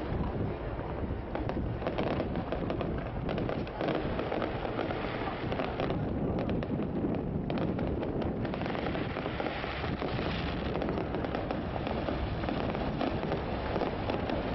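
Fireworks display going off without a break: a dense run of bangs and pops with crackling shells, the crackle thickening about halfway through.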